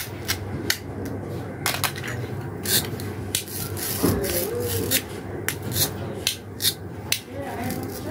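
Hard plastic toy fruit and vegetable pieces being handled, knocked together and set down: an irregular run of short sharp clicks and knocks with rubbing between them.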